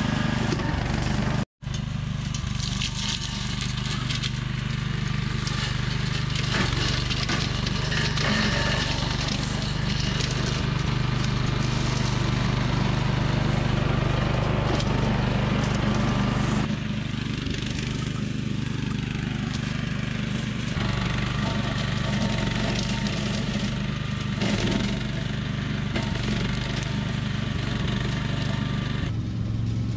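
Billy Goat Outback walk-behind brush cutter's gasoline engine running steadily under load as it mows through brush and leaf litter.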